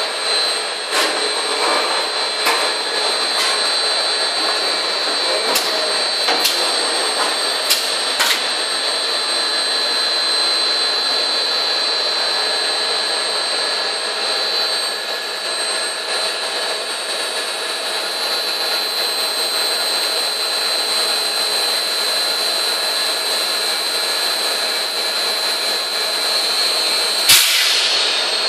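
Extrusion blow moulding machine running while it extrudes plastic parisons: a steady mechanical whine with a continuous high tone. A few sharp clicks in the first several seconds, and a short loud burst of noise near the end.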